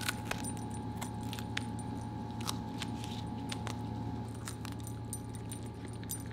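Pomsky dog chewing and tearing a crisp bok choy leaf: a scattered run of small sharp crunching clicks, with a steady low hum underneath.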